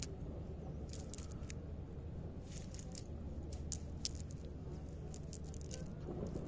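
Wet nylon fishing net being pulled apart by hand among duckweed and water plants: scattered small clicks, crackles and wet squishes at an irregular pace, over a steady low background rumble.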